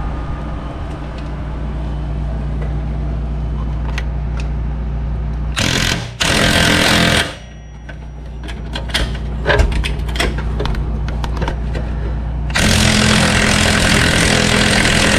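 Impact wrench hammering on the lower ball joint nut of a 2014 Jeep Grand Cherokee's rear knuckle: a short burst about five and a half seconds in and a longer run from about twelve and a half seconds. A steady hum and scattered metal clicks fill the time between. With the ball joint pinched tight by a jack so the stud no longer spins, the wrench drives the nut off.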